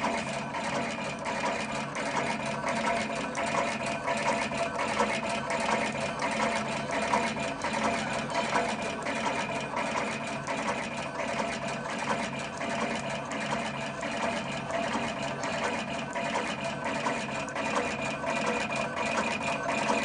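Automatic electric wire cutting and stripping machine running: a steady motor whine with a regular click about twice a second as it feeds, cuts and strips short lengths of copper wire.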